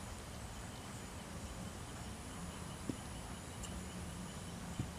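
Quiet steady background hiss and rumble with two brief soft knocks, one a little under three seconds in and one near the end, from kittens and a baby African genet tussling on a woven mat.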